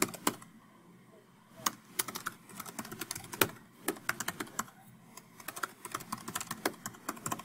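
Typing on a computer keyboard: irregular key clicks as a line of code is typed, with a short pause of about a second near the start.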